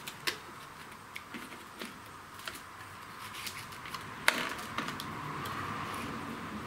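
Scattered light clicks and taps of hands working a new ignition coil against the flywheel on a Kohler Courage engine while setting the coil-to-magnet air gap, with one sharper click about four seconds in.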